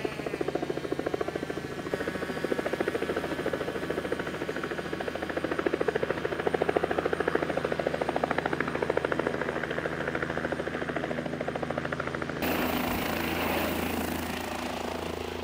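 Helicopter rotor and engine running, with the blades beating in a rapid, even pulse over a steady low hum. About twelve seconds in the sound changes abruptly to a steadier, hissier helicopter sound.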